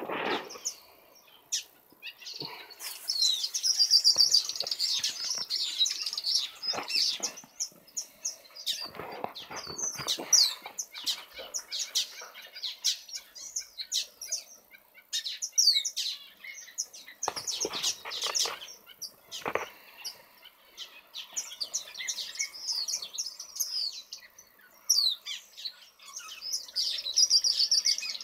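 Small aviary finches and waxbills chirping and twittering, many short high calls overlapping throughout. A few brief rustles break in, around a third of the way in and again about two-thirds through.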